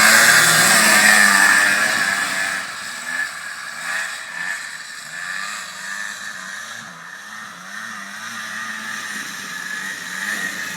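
Honda FL350 Odyssey buggy's single-cylinder engine revving up and down as it is driven. It is loud for the first couple of seconds, then fainter as it moves away, with the revs still rising and falling.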